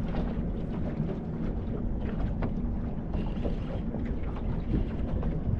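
Wind buffeting the microphone over water lapping against a small boat's hull, with scattered small clicks and knocks.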